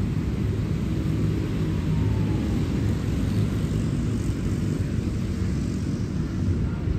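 Steady low rumble of city outdoor ambience: traffic on the surrounding roads mixed with wind buffeting the microphone.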